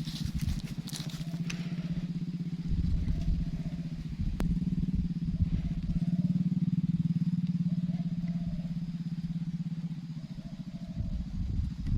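A small engine running steadily nearby, with a sharp click about four seconds in.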